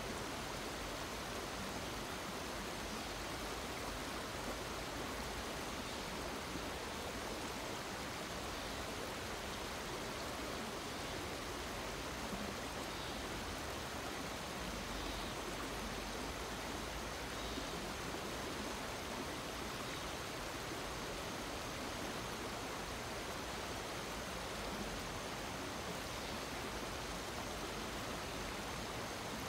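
Shallow river running over rocks and small riffles: a steady, even rush of water.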